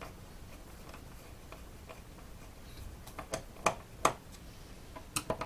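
Several short, sharp clicks and taps from hands handling a mini PC's plastic and metal case, coming in the second half.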